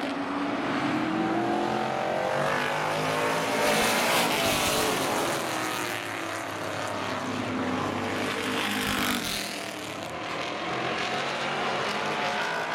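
Several V8 street stock race cars running at racing speed on an oval, their engines rising and falling in pitch as they pass. The sound is loudest about four seconds in, as the pack goes by.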